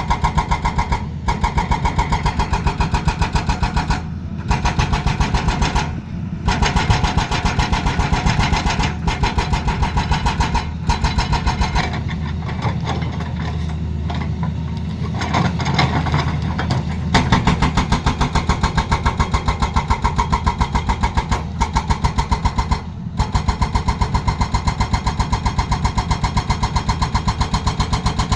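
Excavator-mounted hydraulic breaker hammering in rapid, even strokes over the running diesel engine. For several seconds near the middle the hammering stops and the engine runs on its own.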